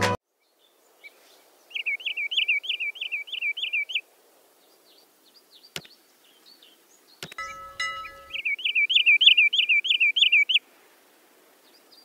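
Wood sandpiper calling: two runs of quick, repeated whistled notes, each note rising and falling, about three a second, each run lasting about two seconds. Between the runs come a sharp click and a short electronic chime.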